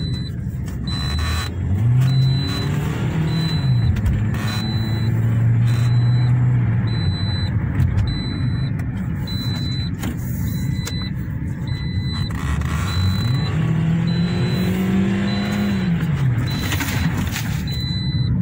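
Toyota Corolla GLi engine under way on a road test: its drone rises in pitch as the car speeds up, holds, then falls away, and does this twice, over steady road rumble. A high electronic beep repeats about once a second.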